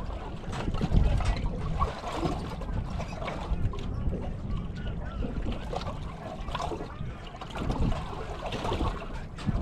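Wind buffeting the microphone in uneven gusts, with water lapping against a small fishing boat.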